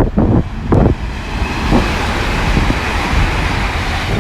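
Five-coach class 802 passenger train approaching along the platform: a rushing noise that builds from about a second and a half in over a low rumble. Wind buffets the microphone near the start.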